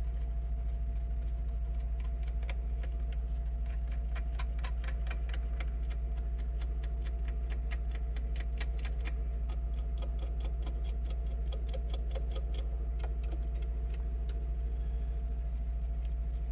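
Small metal nuts and washers clicking and clinking as they are handled and fitted onto a mixer's knob shafts, many light clicks over most of the stretch, thinning out near the end. Underneath, a steady low electrical hum.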